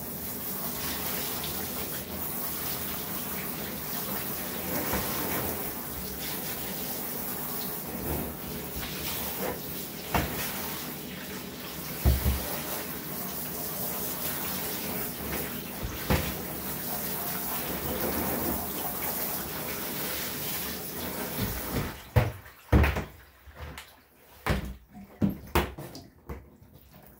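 Handheld shower sprayer running steadily as water sprays onto a wet Cocker Spaniel's coat and into the bathtub. Near the end the spray shuts off, leaving a few scattered knocks and splashes.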